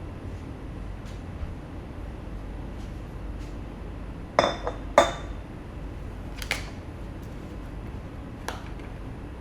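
Dishes clinking as coffee is prepared: two sharp clinks with a short ring about four and five seconds in, then two lighter ones, over a low steady hum.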